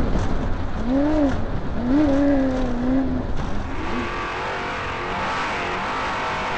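Off-road race car's engine heard from inside the car, revving up and falling back several times over a constant rush of wind and road noise. About three and a half seconds in, the engine settles into a steadier, wavering drone with more hiss over it.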